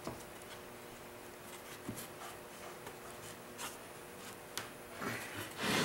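Quiet handling of a glued walnut frame-and-panel cabinet door as it is fitted together by hand: a few light clicks and knocks, and a short rubbing noise near the end.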